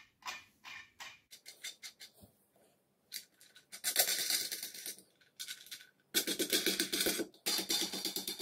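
Steel nuts being fitted and run down onto steel bolts on a galvanised steel base plate: a scatter of light metallic clicks, then three stretches of fast metallic rattling in the second half.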